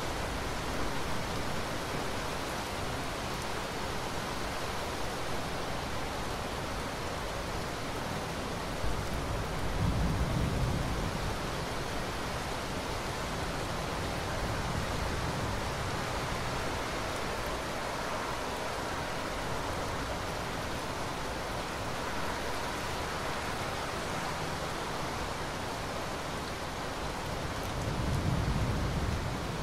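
Steady rain falling, an even hiss throughout, with two short low swells, about a third of the way in and again near the end.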